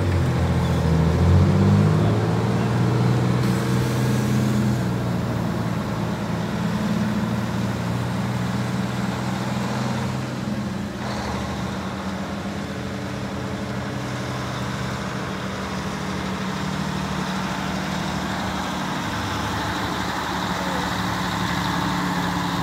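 Mack Cruiseliner cab-over semi tractor's diesel engine running as the truck rolls slowly up and past. The engine revs up over the first couple of seconds, then settles into a steady low drone.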